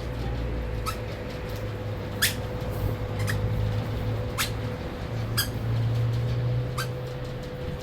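Short, sharp, high-pitched animal calls, six of them about a second apart, over a steady low hum.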